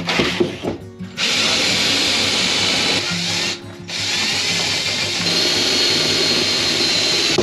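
Handheld power tool running in two long stretches, with a short break about three and a half seconds in; a few knocks just before it starts. Background music plays underneath.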